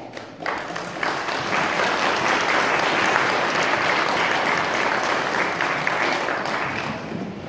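Congregation applauding: many hands clapping in a steady wash that builds up in the first second or so and tapers off near the end.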